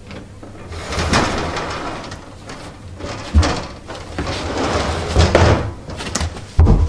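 A wooden cupboard door with glass panels being opened and shut again, with rubbing and knocking as it moves. A few low thuds near the end.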